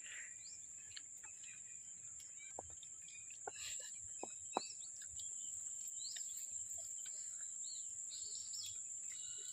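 Quiet rural outdoor ambience: a steady high-pitched insect drone with scattered short bird chirps and a few faint ticks.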